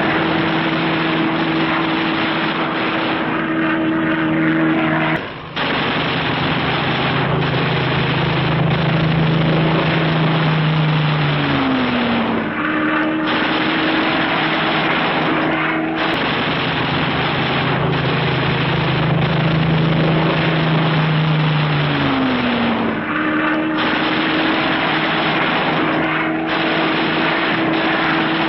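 Steady drone of a piston aircraft engine, its note dropping in pitch twice.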